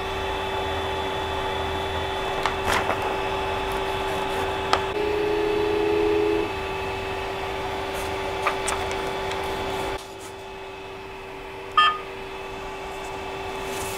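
Creality CR-10S Pro 3D printer humming steadily from its fans and stepper motors, with a louder motor whir from about 5 to 6.5 s as the print head moves to the next leveling point and a few light clicks. The hum drops at about 10 s, and the touchscreen gives a short beep near 12 s.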